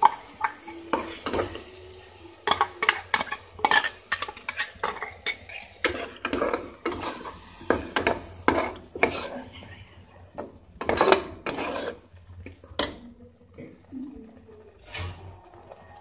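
A metal spoon stirring thick ground masala paste in an aluminium pressure cooker, irregular scrapes and clinks against the pot's sides and base. The strokes come thick and fast through most of it and thin out near the end.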